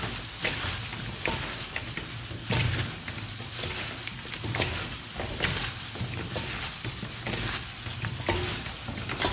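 Gloved hands tossing blanched lotus root slices with dressing in a stainless steel mixing bowl: continuous wet squishing and rustling, with irregular clicks as the slices knock against each other and the bowl.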